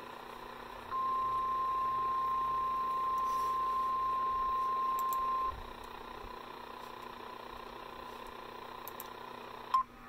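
NOAA Weather Radio 1050 Hz warning alarm tone: a single steady high tone, loud for about four and a half seconds, then much fainter under radio hiss. It signals that a warning is about to be read. A short blip comes just before the end.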